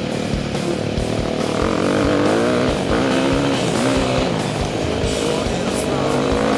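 Four-stroke dirt bike engine revving up and down with the throttle while riding a rough forest trail, its pitch rising and falling every second or so.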